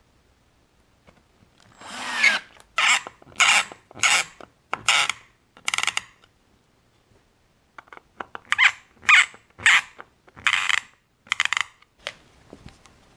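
Hand screwdriver driving a screw through a rubber bumper foot into a wooden cutting board, each twist of the driver making a short rasping burst. About six bursts come in a row, then a pause, then about six more.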